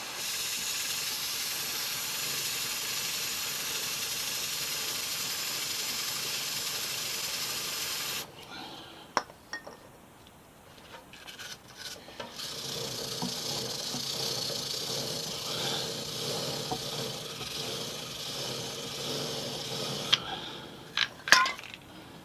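Aerosol chain cleaner spraying onto a motorcycle chain in a steady hiss for about eight seconds. After a pause with a few clicks, a brush scrubs the chain for several seconds, and a few sharp knocks come near the end.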